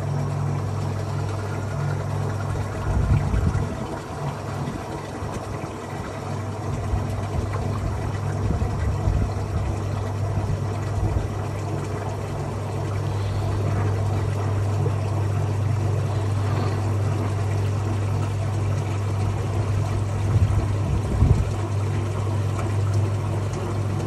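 Maytag Heritage top-load washer agitating a load of towels: a steady motor hum with water churning, and a few dull thumps about 3, 9 and 21 seconds in.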